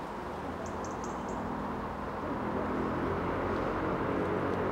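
Steam locomotive hauling a train on approach, its running growing steadily louder from about two seconds in. A few short, high bird chirps about a second in.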